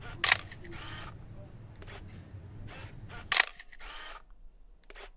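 Two loud, sharp clicks about three seconds apart, with fainter clicks between, over a low rumble that stops about three and a half seconds in.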